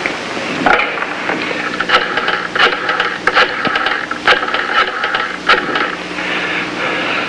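Rotary telephone being dialled: a run of irregular clicks and rattles from the dial over about five seconds, over a steady hiss and hum.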